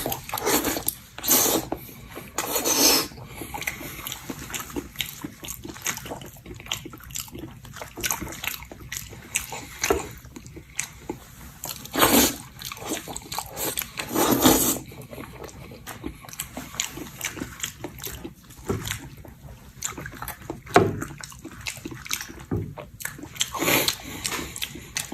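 Close-up wet chewing and lip smacking of a person eating pig's ear by hand, with many small clicks and a handful of louder wet, sucking noises.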